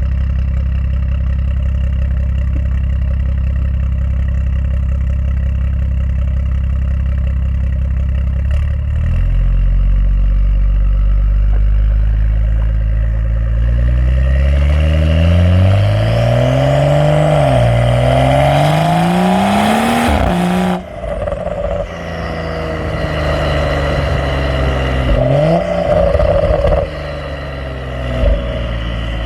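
Exhaust of a BMW M135i's turbocharged N55 straight-six, decatted and with the middle silencer deleted. It idles steadily for about nine seconds, then the car pulls away with revs climbing and dropping through gear changes. About twenty seconds in the throttle snaps shut with a sharp crack, followed by lighter, uneven running and another rise in revs near the end.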